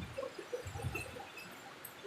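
Rain storm with strong wind: a few low gusts of wind on the microphone in the first second die away, leaving a faint, even hiss of rain.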